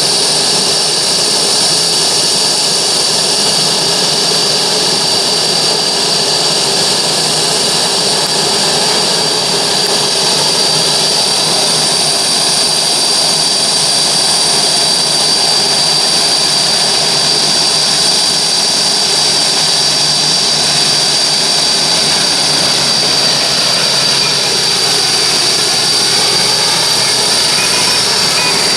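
Boeing 787-9 airliner's jet engines running steadily with a high whine. Sweeping tones come in near the end.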